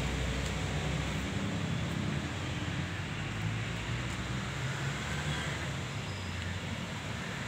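Steady rumble of road traffic, a low, even noise with no single event standing out.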